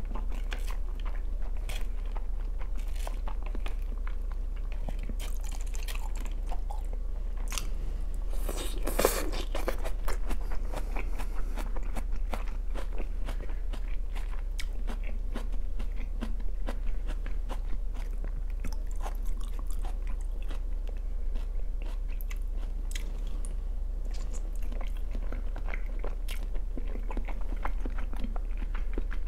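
Close-miked mukbang eating sounds: a person chewing and biting food, with wet mouth clicks and crunching throughout and a louder stretch about nine seconds in.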